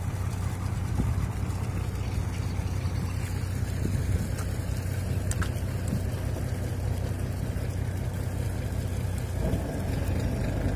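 Engine of a wooden motor boat running with a steady low drone, its sound shifting slightly about nine and a half seconds in.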